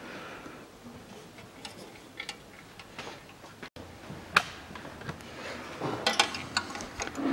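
Light clicks and ticks of a detached plastic fuel filler door and its metal hinge being handled and turned over, with a sharper click about four and a half seconds in and a few more near the end.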